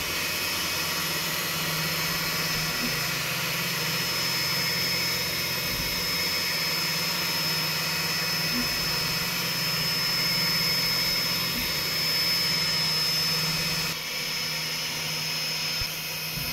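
Two Trees SK1 CoreXY 3D printer running a fast print at around 600 mm/s: a loud, steady machine noise from its stepper motors, with a constant high-pitched whine over a low hum.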